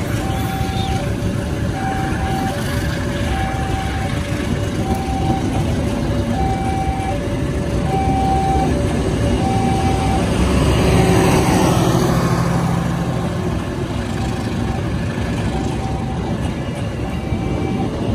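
Passenger train coaches rolling past on the rails with a steady rumble. Over it, a level-crossing alarm sounds two alternating tones, one high and one lower, in a steady repeating pattern. The train noise swells to its loudest around eleven seconds in.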